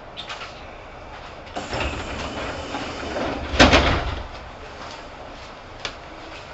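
Kintetsu 2800 series train's pneumatic sliding doors opening at a station stop: a rush of air for about two seconds, ending in a loud thud as the doors reach the open position.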